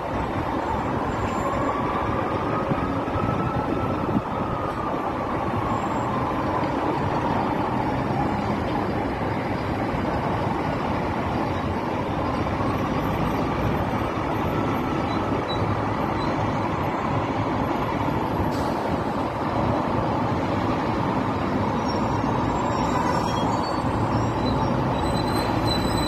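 Steady road-traffic noise from a busy highway and bus lanes, the hum of many passing vehicles. A faint tone slowly rises and falls a few times over the traffic.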